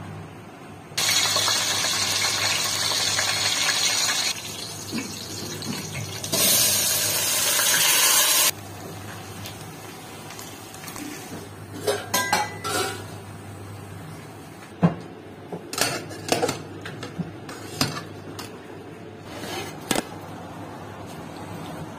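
Two spells of loud, steady rushing noise, then a steel ladle clinking and knocking against a stainless-steel bowl of rice, several sharp strikes in the second half.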